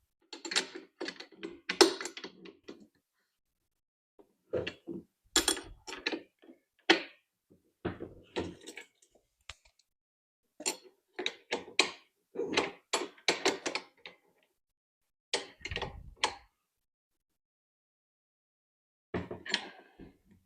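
Metal multi-tool wrench working a lock nut on a cart wheel's axle, with bursts of sharp clicks and clatters and short pauses between them.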